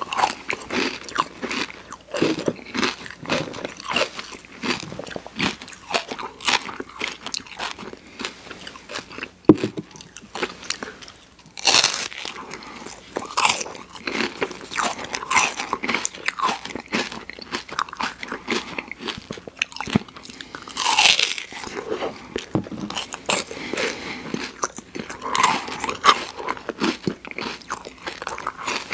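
Close-miked crunching and chewing as a person bites into wafer cake cones filled with ice cream, a steady run of crisp crunches with a few louder bites and wet mouth sounds between them.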